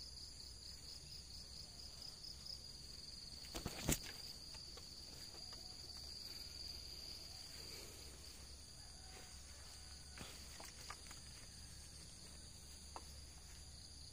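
Steady, high-pitched drone of an insect chorus. A few faint knocks sound about four seconds in.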